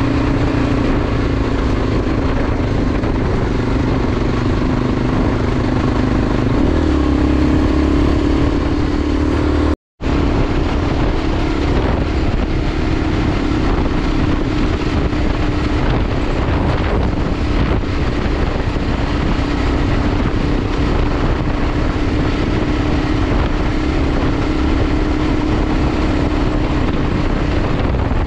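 Enduro motorcycle engine running at a steady, even pitch while riding, with a dense rushing noise underneath. The sound cuts out completely for a split second about ten seconds in, then carries on unchanged.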